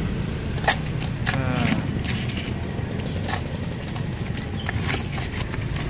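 Ladle scooping crushed ice in a plastic tub and dropping it into a plastic cup: irregular clinks and scrapes of ice, over a steady low street-traffic rumble.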